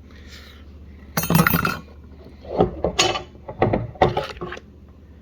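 Steel internal parts of an A904 automatic transmission clinking and clanking against each other as it is taken apart. There is a short rattle of metal about a second in, then several separate sharp, ringing clinks.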